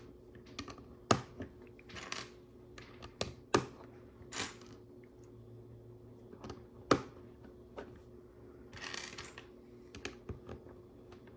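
Plastic LEGO bricks clicking as they are handled and pressed together: a scattered series of sharp clicks, the loudest about a second in and near seven seconds, with softer short scrapes of pieces being sorted in between.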